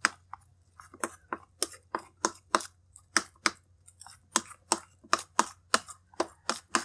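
A metal spoon beating a thick crispy-fry flour batter in a bowl, clicking against the bowl's side in a steady rhythm of about three strokes a second, to mix the flour evenly.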